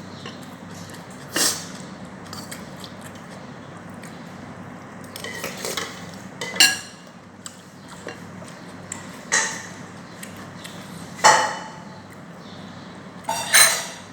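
Cutlery clinking and scraping on a plate during a meal of rice and curry: about half a dozen sharp clinks a few seconds apart, the loudest a little past the middle.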